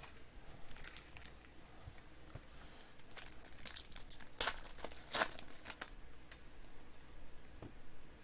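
Plastic wrapping crinkling and tearing as a box of trading cards and its packs are opened, with a few sharper crackles about four and five seconds in.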